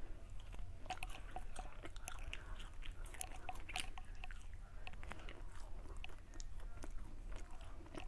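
A person biting and chewing a piece of pitha (rice cake) close to the microphone, with many small wet clicks and smacks throughout.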